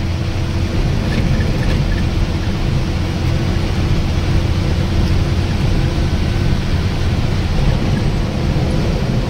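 Bus engine running steadily with road rumble, heard from inside the driver's cab while the bus is under way.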